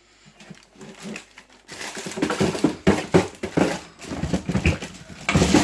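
Plastic freezer drawers being pulled out and handled, with an irregular run of rattling, scraping and rustling that starts nearly two seconds in.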